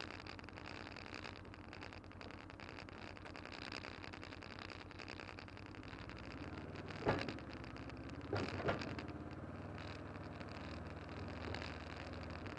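A vehicle engine running steadily, with two sharp knocks about a second and a half apart just past the middle.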